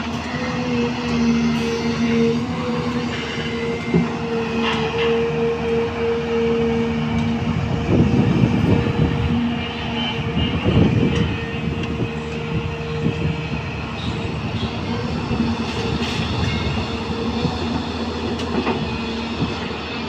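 Hyundai crawler excavator running with a steady engine and hydraulic hum. About halfway through come two rough scraping stretches as its bucket digs into a pile of soil, with a few short knocks elsewhere.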